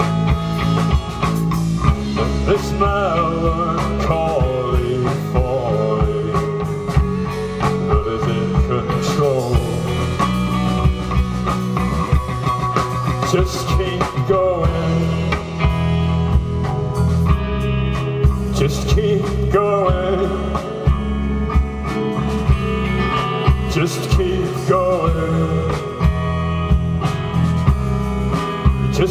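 Live rock band playing: gliding, bending guitar lines over bass and a steady drum beat.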